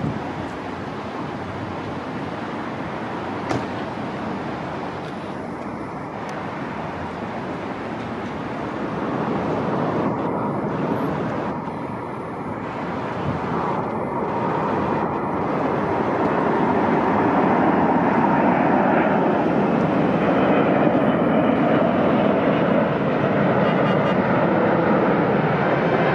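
Airbus A380 on final approach, its four turbofan engines making a steady jet rumble that grows louder as the airliner comes in low and passes overhead.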